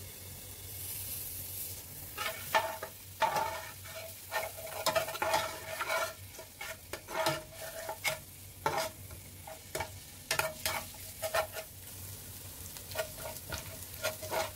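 Metal spoon scraping and knocking against a metal stockpot while stirring minced garlic frying in oil, with a quiet sizzle underneath. The knocks come irregularly from about two seconds in, each leaving the pot ringing briefly.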